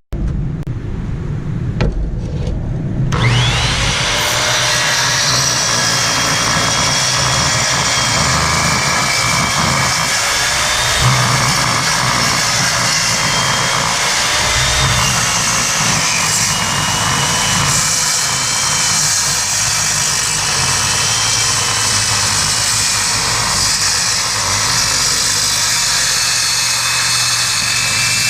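Skil worm-drive circular saw with a Diablo Steel Demon blade ripping quarter-inch steel plate. After a low rumble, the blade bites into the steel about three seconds in, and a steady, high-pitched cutting noise with wavering whines carries on.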